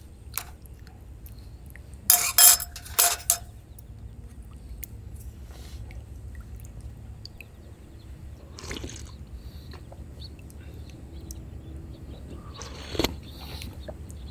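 Tableware clinking sharply several times with a short ring, about two seconds in, over a low steady hum. Softer handling knocks follow later.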